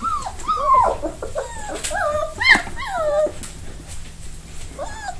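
Four-week-old Newfoundland puppies whimpering: a quick series of short high cries that fall in pitch, thinning out after about three seconds, with one more cry near the end.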